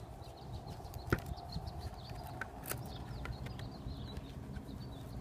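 Light clicks and knocks from handling a plastic hard hat and its suspension while a Velcro sweat pad is wrapped on, with one sharper click about a second in.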